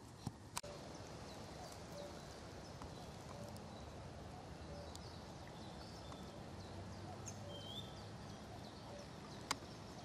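Outdoor woodland ambience: many short bird chirps and calls scattered over a faint steady background, with two sharp clicks just after the start and one near the end.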